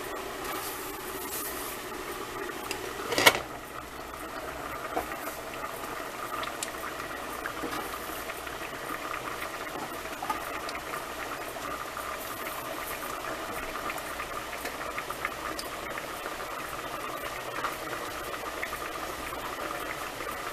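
Pot of lima beans and ham hocks boiling, with a steady bubbling and small pops. About three seconds in there is one sharp clank, the glass lid knocking against the pot as it is shifted.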